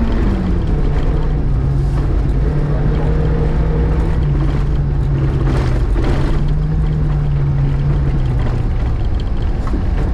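VAZ 2105 (Lada) rally car's engine heard onboard at speed on gravel, over continuous tyre and gravel noise. Its note drops sharply just after the start, then holds fairly steady with small dips. There is a brief rush of noise about halfway.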